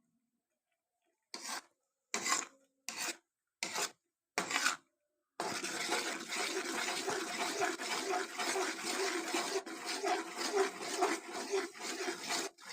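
A spatula scraping in a cooking pan: five short strokes, then continuous stirring and scraping from about five seconds in.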